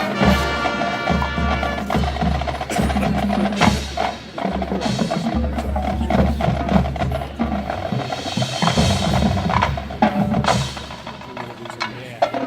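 Marching band music in a percussion-heavy passage: drums and pitched percussion playing over long, low sustained bass notes. The music gets quieter for a moment near the end.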